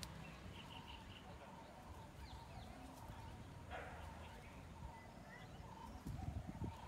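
Faint outdoor ambience with small birds chirping now and then, including a quick run of four short notes about half a second in. A few low thumps come near the end.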